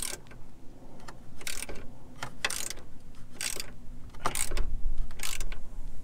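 Hand ratchet wrench clicking in short bursts, about one swing a second, as the bolts of a Mustang's rear subframe bracket are worked loose.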